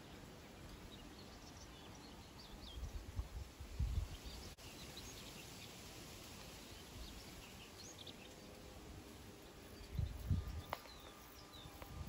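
Quiet outdoor ambience with faint, scattered short bird chirps. Two brief bursts of low rumble come about three seconds in and again near the end.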